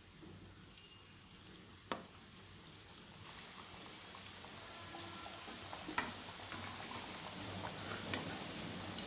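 Pani puri (semolina puris) frying in hot oil in a kadai: a sizzling hiss that starts about a third of the way in and slowly builds, with scattered sharp crackles of the oil.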